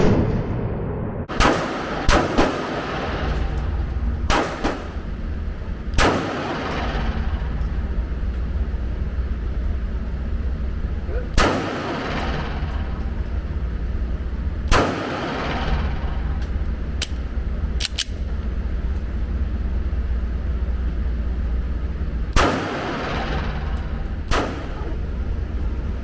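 9mm Polymer80 Glock 19-style pistol firing about ten single shots at irregular intervals, a couple in quick succession, each with a short echo, over a steady low rumble.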